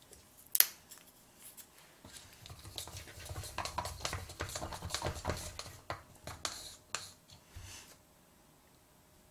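Disposable wooden chopsticks being taken from their paper sleeve and handled over a sushi tray. There is a sharp click near the start, then about five seconds of small clicks, scraping and light knocks, dying away about eight seconds in.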